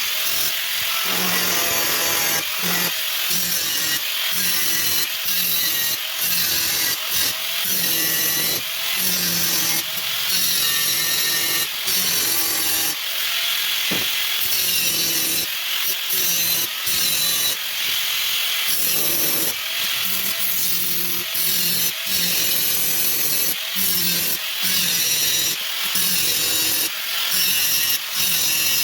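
Band saw cutting wood: the blade rasps through the timber over a steady motor hum that comes and goes, with many brief dips in loudness.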